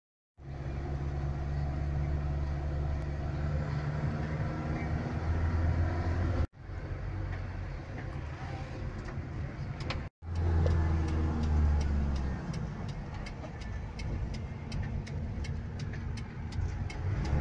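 Engine and road noise of a moving vehicle heard from inside the cab, a steady low drone that drops out briefly twice, about six and ten seconds in. In the last few seconds a quick run of regular ticks sounds over the drone.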